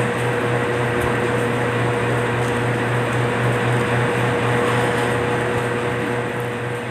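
Steady mechanical hum with an even hiss from an appliance motor running in a small room.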